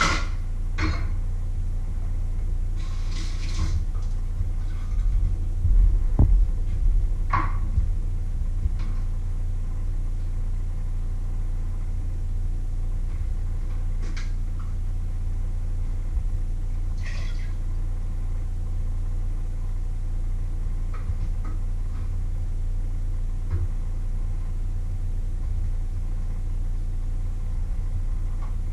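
A steady low hum runs throughout, with scattered clinks and clatters of pots, dishes and utensils being handled. There is a short burst of clatter about three seconds in and single knocks now and then after it.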